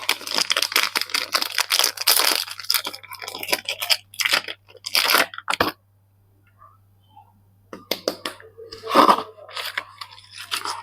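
Soap packaging being unwrapped by hand: the wrapper crinkles and tears in dense rustling bursts for the first few seconds, pauses for about two seconds, then crinkles again in shorter bursts. A faint steady low hum sits underneath.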